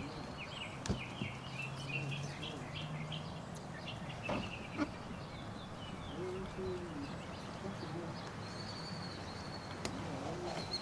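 Birds chirping in a quick series during the first few seconds, with scattered sharp clicks and a faint low hum.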